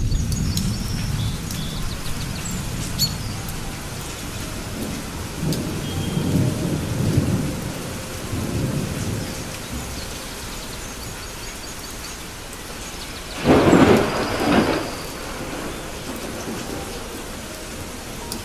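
Steady heavy rain with thunder: low rolling rumbles, then a sharp, loud thunderclap about three-quarters of the way through that rolls on for a second or so.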